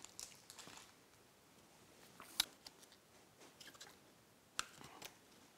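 Faint handling of a plastic Flick Large case and its parts: light plastic rustling at first, then a few sharp, isolated plastic clicks and taps, one about two and a half seconds in and two more near the end.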